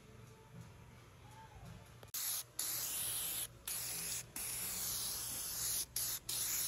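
Aerosol can of rust-protection spray with an extension straw, hissing in a series of spray bursts with brief pauses, starting about two seconds in.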